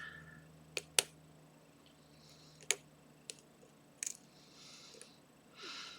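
Lock pick and tension wrench working the pins of a pin-tumbler challenge lock: a handful of sharp, separate clicks, the loudest about a second in, with faint scraping between them.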